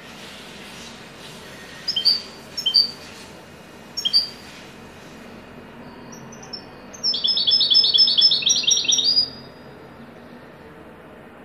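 European goldfinch singing: a few short, sharp chirps in the first half, then a loud, fast trill of repeated notes lasting about two seconds, about six notes a second.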